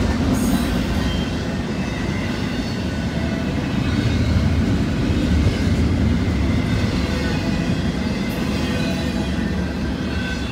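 Double-stack intermodal freight train rolling past: well cars loaded with shipping containers, their steel wheels giving a steady, low rumble on the rails.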